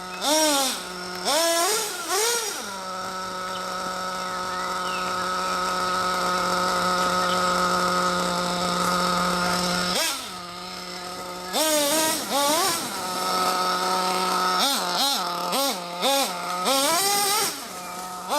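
The RB K10 .21 nitro engine of a 1/8 Ofna Dominator RC truck revving in quick throttle blips. It then holds a steady high whine for about seven seconds and goes back to short, rapid blips near the end.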